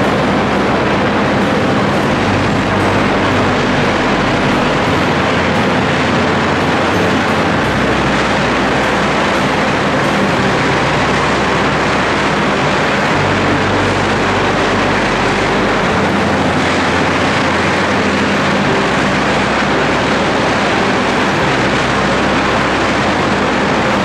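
Loud, steady industrial noise of a steel melt shop around an electric arc furnace: a dense, unbroken rumbling hiss with deep low tones that shift every few seconds.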